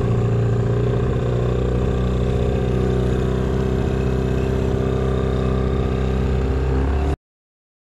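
Tiller-steered outboard motor on a small boat running at a steady cruising speed. The sound cuts off abruptly near the end.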